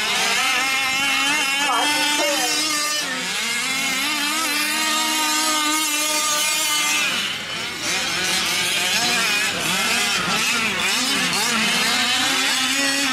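Several 5th-scale gas RC off-road trucks' small two-stroke engines revving up and easing off as they race, their pitches overlapping and rising and falling.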